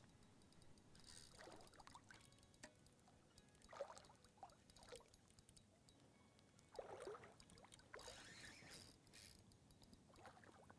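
Near silence, with a few faint, brief splashing sounds of water a few seconds apart.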